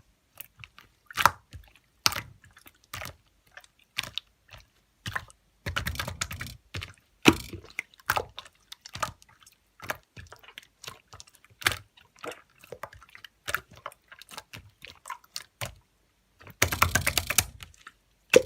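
Snowflake slime being pressed and poked by hand, giving irregular sticky clicks and pops, with two longer runs of dense crackling, about six seconds in and near the end.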